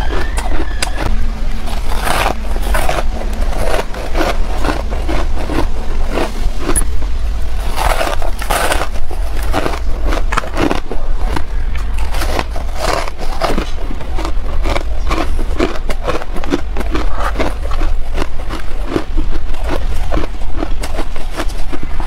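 Freezer frost being bitten and chewed close to a clip-on microphone: a dense, irregular run of crisp crunches and crackles.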